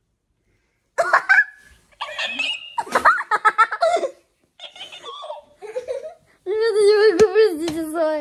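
A girl laughing in repeated bursts, starting about a second in, with a longer wavering laugh near the end.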